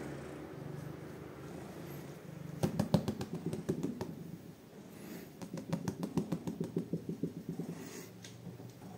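Two runs of rapid light tapping or clicking, about eight taps a second, the first starting about two and a half seconds in and the second a little after the middle.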